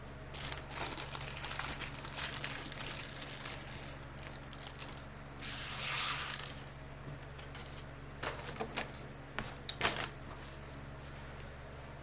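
Small plastic LEGO pieces clicking and clattering against each other and a hard surface, mixed with crinkling plastic parts bags. There is a dense spell of clatter and rustling early on, a short rustle about six seconds in, and scattered clicks near the end.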